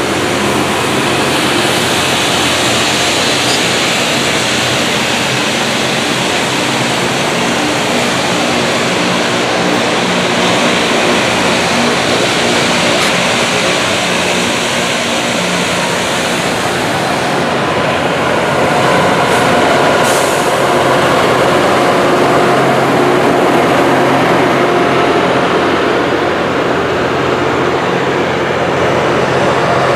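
Loram rail grinder train grinding the rails as it passes: a loud, steady grinding hiss with a low engine drone under it, growing a little louder about two-thirds of the way through.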